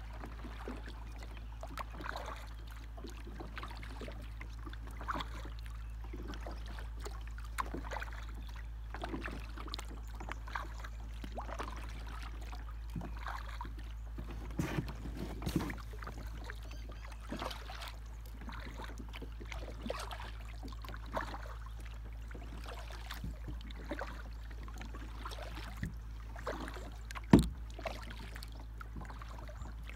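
Paddle strokes from a small paddled boat on calm river water: light splashes and drips, irregular, about one a second, over a steady low rumble. One sharp knock near the end.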